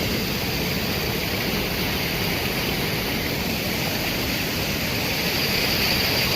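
Steady rush of rainwater running off in a flood, an even, constant noise.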